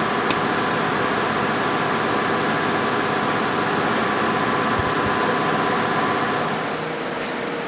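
Steady mechanical whir with a few held tones in it, easing off slightly near the end.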